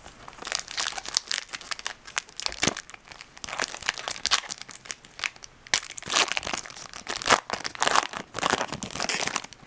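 A trading-card pack's foil wrapper crinkling as it is torn open and handled, with a steady stream of irregular crackles.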